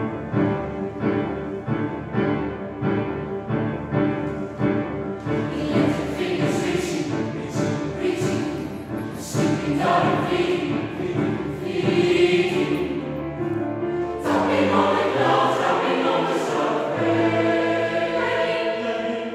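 Mixed youth choir singing with grand piano accompaniment, a regular pulsing rhythm in the first few seconds, then crisp hissing consonants from the voices, with the texture fuller from about two-thirds of the way through.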